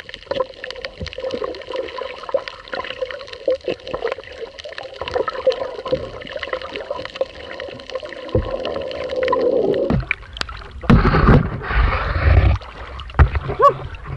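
Underwater sound through a submerged camera: a dense crackle of small clicks over a steady hum. About ten seconds in it gives way to loud sloshing and splashing as the diver surfaces.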